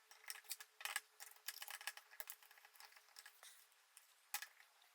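Faint, scattered clicks and taps of batteries and a plastic battery compartment being handled as batteries are fitted into a digital multimeter, busiest in the first couple of seconds.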